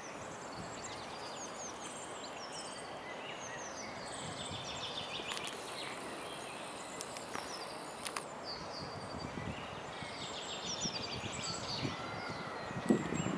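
Several small birds singing and chirping over a steady outdoor background hiss, with a short thump near the end.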